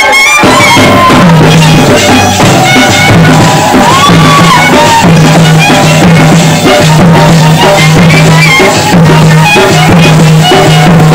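Wedding band playing loud dance music: drums beating steadily under a wavering horn melody.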